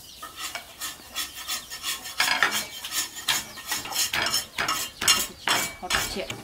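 Irregular light clattering and scraping of kitchenware and food being handled, a few sharp knocks a second.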